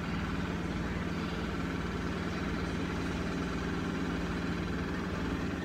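Washing machine on its spin cycle: a steady, low mechanical hum with one constant tone, the drum spinning hard enough to make the house shake.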